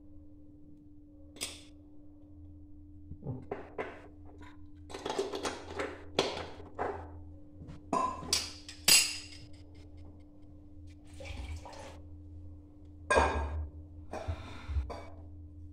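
Dishes and kitchen utensils clinking and clattering at the sink and counter, with a few sharp knocks in the middle and a steady low hum underneath.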